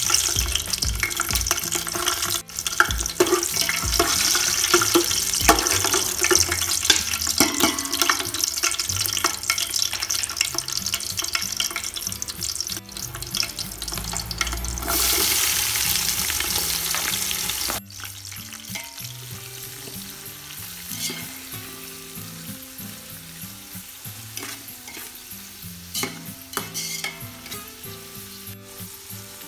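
Hot oil sizzling and crackling in an aluminium pot as whole spices and green chillies sauté. It turns to a louder, steadier sizzle for a few seconds as sliced onions go into the oil, then drops suddenly to a quieter, softer sizzle while they are stirred.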